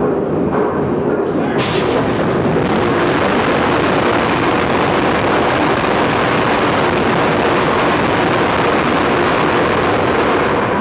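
Aircraft carrier's heavy steel anchor chain running out at full speed during an anchor drop, a loud, dense, continuous clatter of links. It jumps to full loudness about a second and a half in and holds steady.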